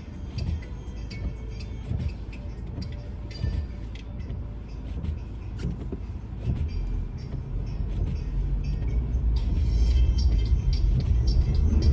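Road noise inside a moving car: a low rumble that grows louder over the last few seconds, with scattered sharp clicks.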